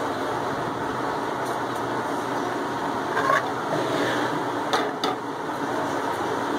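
A steady rushing background noise, with a few light knocks and clicks as a plate and a plastic bowl are handled on a wooden table.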